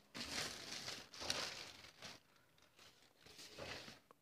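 Thin plastic packaging bag crinkling and rustling as it is pulled off a cardboard shoebox, in bursts over the first two seconds, with a fainter rustle near the end.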